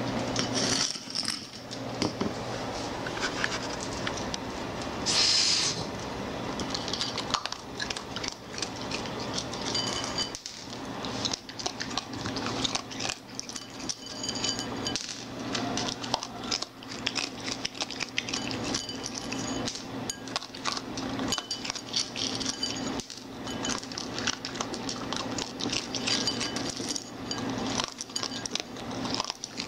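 A raccoon's claws clicking and tapping on the hard floor and on the camera as it pads about and pokes at it up close: many light clicks and clinks, over a steady low hum.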